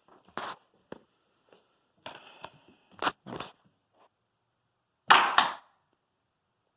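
A pair of loudspeakers wired straight to household mains power giving sharp pops and crackles as they fail. There are a few cracks around two to three seconds in, and the loudest, a double crack, comes about five seconds in.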